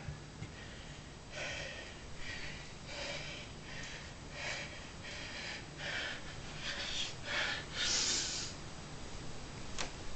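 A man's short, forceful breaths, hissed out one after another about every half second to second, as he strains to bend a steel bar by hand. The longest, hardest exhale comes about eight seconds in, and a single sharp click near the end.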